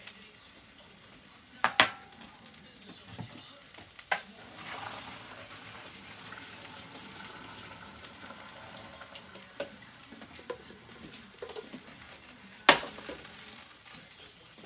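Vegetables sizzling steadily in a frying pan on the stove. There are a few sharp clanks of cookware and utensils, the loudest near the end.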